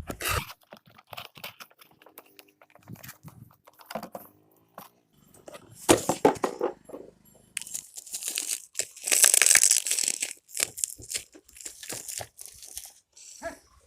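Packaging of a bicycle headlight being handled and torn open: irregular crinkling, rustling and tearing with scattered clicks, loudest about six seconds in and again around nine to ten seconds.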